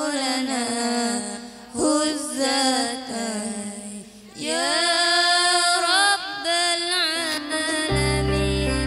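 Background music: a single voice sings a slow melismatic melody, its pitch bending and wavering through long held notes with short pauses. Near the end, a steady sustained instrumental chord comes in underneath.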